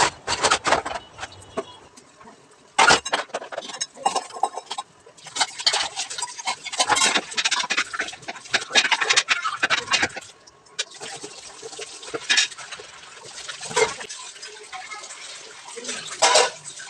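Steel utensils being washed at a kitchen sink: running, splashing water with irregular clatter and clanks of metal dishes and pots being handled.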